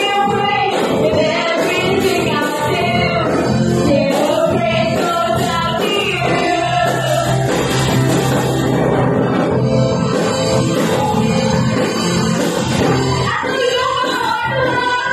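A live band playing a rock-style song: two women singing into microphones over electric guitar, acoustic guitar, drums and keyboard, amplified through a PA.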